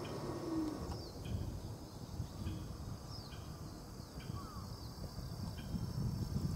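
Birds calling from the roadside trees: short chirps repeated about once a second, with a few thin, downward-sliding calls, over a low rumbling noise that grows louder near the end.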